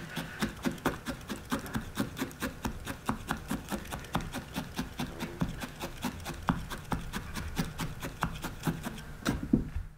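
Pen-style felting needle tool stabbing repeatedly into loose white wool, a quick even run of soft punching clicks about five a second. It is felting white wool down to blend it into the face of a needle-felted fox.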